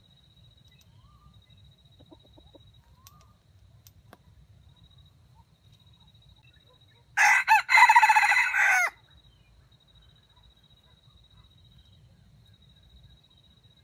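A red junglefowl rooster crows once, about seven seconds in: a brief opening note, then a longer phrase, under two seconds in all.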